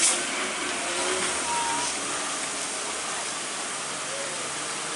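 Steady hiss of heavy rain on a wet road, with truck and motorcycle engines running under it.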